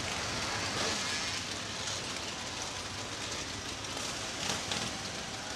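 Steady rushing noise of wind across the microphone of a camera carried aloft by a kite.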